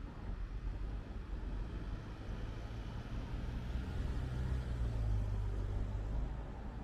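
A motor vehicle passing on a city street: a low engine rumble that grows to its loudest about five seconds in, then eases off.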